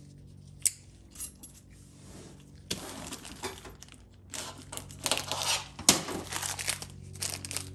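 Small metal thrust washers clinking and a plastic parts bag rustling as the new washers are handled on a steel workbench: an isolated click a little under a second in, then irregular rustling and light metallic clicks through most of the rest, loudest around the middle.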